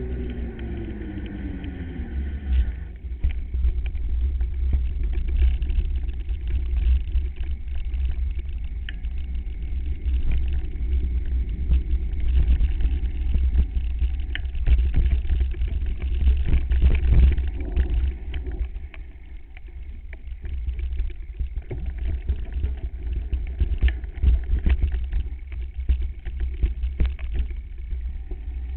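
Wind buffeting the microphone of a camera mounted on a moving mountain bike, with knocks and rattles as the bike rides over rough grassy ground. A hum falls in pitch over the first couple of seconds.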